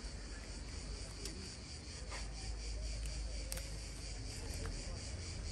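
Insects chirping in a steady, even rhythm of about five pulses a second, high-pitched, with a low rumble underneath.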